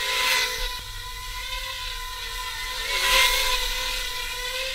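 Eachine FB90 FatBee micro quadcopter's brushed motors and ducted four-blade props whining in flight. The pitch wavers with throttle, swelling louder about a third of a second in and again around three seconds in.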